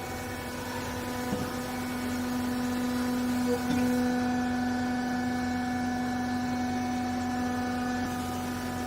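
Vertical baler's hydraulic power unit running with a steady hum, getting a little louder a few seconds in.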